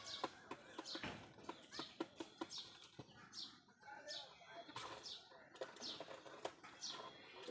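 Domestic pigeons pecking grain off a concrete floor, many quick sharp clicks, with a bird's high, falling chirp repeating about every half second to a second.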